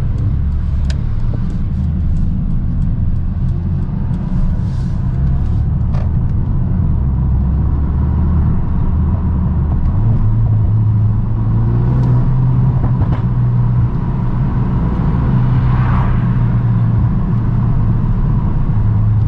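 Mercedes-AMG A35's turbocharged 2.0-litre four-cylinder engine and exhaust, on a stage 1 tune with the rear silencer (back box) removed, droning inside the cabin while driving, with tyre and road rumble. The engine note shifts in pitch a few times and rises about halfway through as the car picks up speed.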